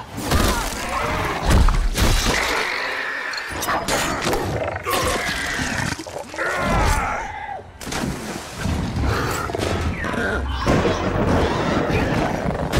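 Film action sound mix of sea monsters attacking: repeated heavy thuds and shattering crashes, grunts, and wavering high-pitched creature screeches.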